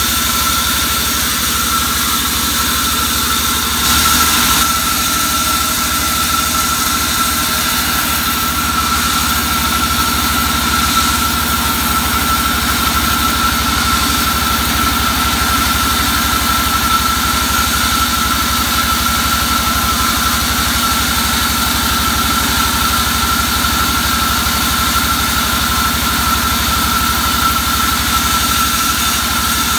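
Band sawmill running steadily without a change in load: a steady high whine over a low machine hum. There is a brief louder noise about four seconds in.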